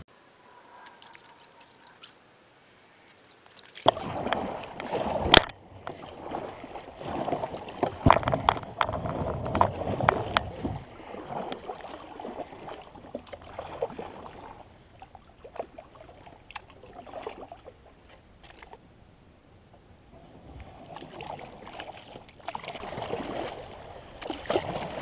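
Double-bladed kayak paddle stroking through the water: blades dipping and splashing with drips, the stroke sounds starting about four seconds in, with a sharp knock about five seconds in, and easing off partway through.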